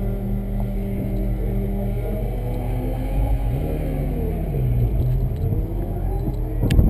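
Audi RS5's 4.2-litre V8 idling, heard from inside the cabin, its pitch rising and falling briefly around the middle. A sharp thump near the end.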